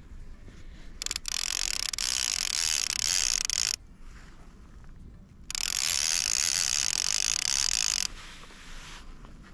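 Fishing reel's drag ratcheting loudly as a hooked tope runs line off the spool. There are two runs of about three seconds each, the second starting about a second and a half after the first, and each stops abruptly.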